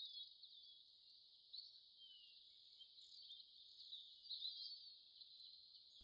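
Near silence: a faint steady high hiss of outdoor ambience with a few faint bird chirps in it.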